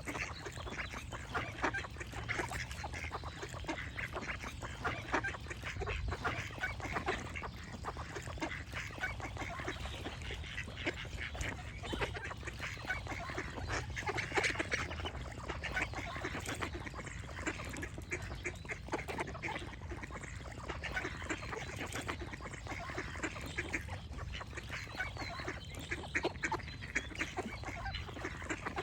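A flock of ducks quacking and chattering, many short calls overlapping without a break.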